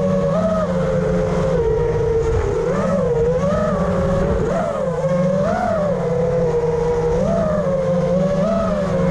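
FPV quadcopter's brushless motors whining, the pitch rising and falling every second or so, with a low rushing noise underneath.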